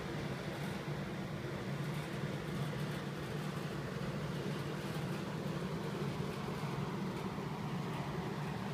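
Steady low mechanical hum over a faint even hiss, unchanging throughout.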